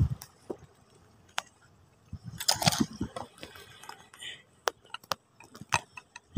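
A thump, then scattered sharp clicks and a short crunching rustle about two and a half seconds in, close to the microphone.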